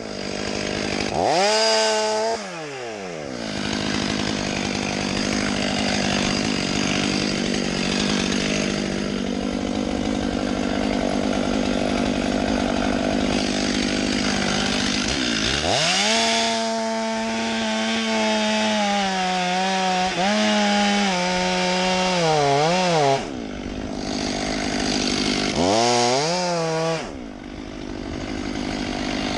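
Chainsaw engine revving up and dropping back several times, with a long stretch of cutting in the middle where its pitch wavers under load.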